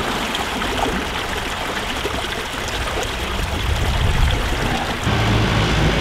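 Water of a small stream rushing and splashing over stones in a little cascade. About five seconds in, a passing tractor's engine joins in with a low, steady running note.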